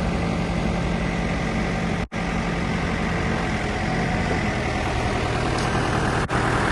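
New Holland LB75B backhoe loader's diesel engine running steadily at idle. The sound cuts out for an instant twice, about two seconds in and near the end.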